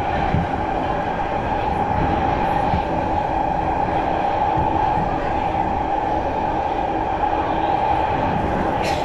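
Kawasaki C151 metro train running through a tunnel, heard inside the carriage: a steady rush of wheel and running noise with a constant droning tone. A brief sharp high sound stands out near the end.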